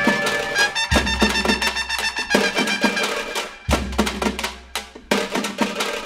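Background music with rhythmic drums and percussion over sustained melodic lines, with heavy low drum hits at about one second and just under four seconds in.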